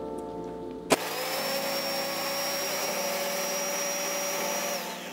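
Hamilton Beach countertop blender switched on with a click about a second in, its motor running with a steady whine as it grinds dry Flamin' Hot Cheetos into crumbs, then stopping near the end.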